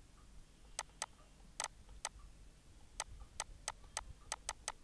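About a dozen irregular, sharp clicks and taps of a stylus on a pen tablet while handwriting is written, coming closer together near the end.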